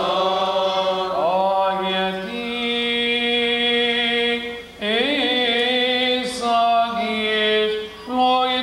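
Male voices chanting a Coptic Orthodox liturgical hymn in long, drawn-out notes that step slowly between pitches, with brief breaks for breath about halfway through and near the end.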